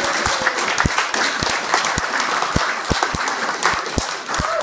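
Audience applauding, with a dozen or so dull low thumps mixed in.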